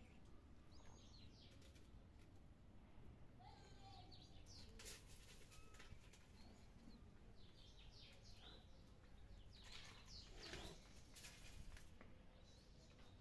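Faint birds chirping in short, high calls now and then, over quiet background noise, with a few brief clicks in the second half.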